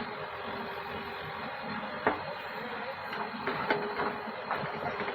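Diesel earthmoving machinery running steadily, with a few short sharp knocks.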